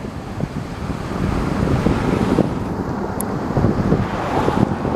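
Wind buffeting the camera microphone: a loud, uneven low rumble that swells and eases.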